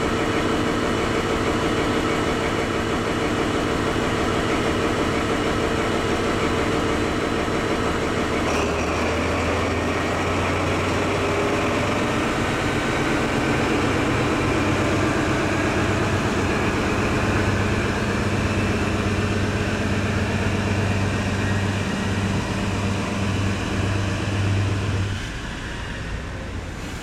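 Class 43 HST power car's diesel engine running beside the platform. About eight seconds in it opens up to draw the train away, giving a deep, steady note. Near the end it falls away as the power car leaves and the coaches roll past.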